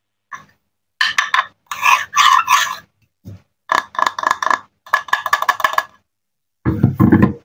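Wooden cutting board and plastic toy knife being handled and slid about on a table: a string of short scraping and rubbing sounds with silent gaps between them, and a heavier thump-like burst near the end.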